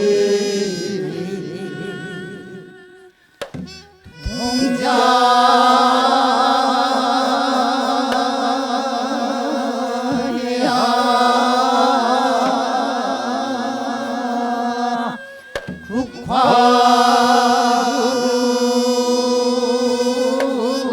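Mixed male and female chorus singing Naepoje sijo, a Korean traditional sung poem, in long held tones with a wide wavering vibrato. The singing breaks off briefly about three seconds in and again about fifteen seconds in, then resumes.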